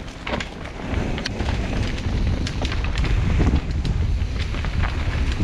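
Wind rumbling over the microphone of a helmet-mounted GoPro on a fast mountain-bike descent, growing louder about a second in. Scattered sharp clicks and knocks from the Specialized Enduro Expert's tyres and chain rattling over rocks.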